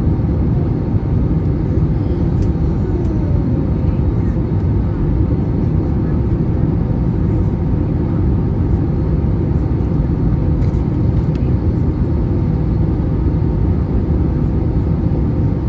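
Steady low cabin noise inside an Airbus A321neo airliner on descent: airflow around the fuselage and its Pratt & Whitney PW1100G geared turbofan engines, even throughout.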